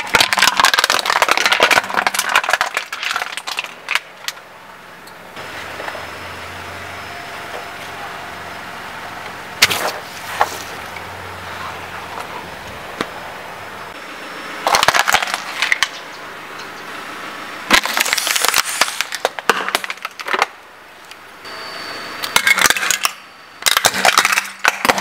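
Things being crushed under a slowly rolling car tyre: aluminium soda cans crumpling and splitting, then hard plastic toy pieces cracking and snapping. The sound comes in several separate bursts of crunching and cracking, with one single sharp crack about ten seconds in.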